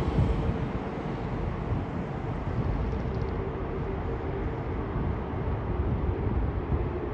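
Airbus A330 airliner's jet engines running as a steady rumble, with a faint whine holding near one pitch and a second whine sinking slightly in pitch near the end.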